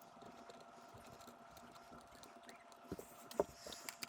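Quiet handling of airsoft rifle parts during reassembly: a few light clicks and taps, mostly in the second half, with the clearest two about three seconds in.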